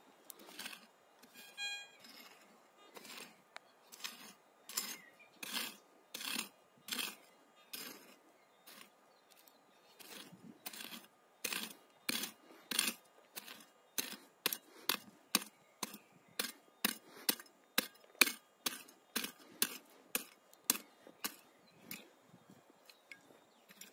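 A pickaxe digging into stony soil: repeated sharp strikes, about two a second, growing louder and quicker in the middle. There is a short beep about two seconds in.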